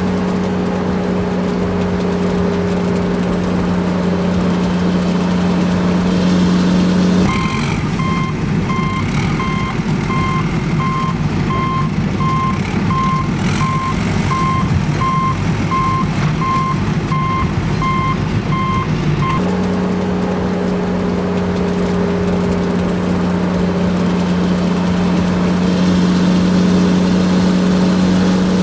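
Truck engine idling with a steady low hum. About seven seconds in, a reversing alarm starts beeping in an even rhythm, and it stops some twelve seconds later, leaving the engine hum alone.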